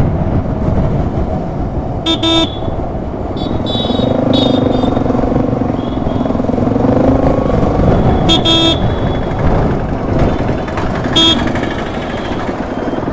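Town road traffic: steady vehicle engine and road noise, with short horn honks about two seconds in, past the middle and again later.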